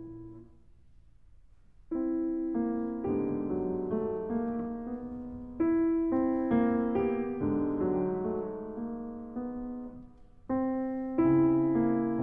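Slow solo piano music of held notes and chords. It almost dies away in the first two seconds, then picks up, and pauses again briefly about two seconds before the end before new chords come in.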